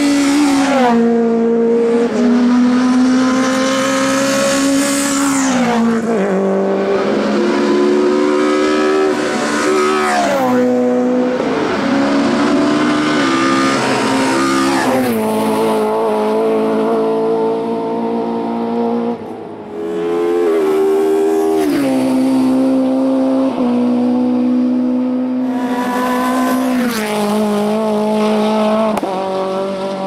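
Racing car engines at full throttle, accelerating hard out of a hairpin and up the hill. The engine note climbs and then drops sharply at each upshift, about every four to six seconds.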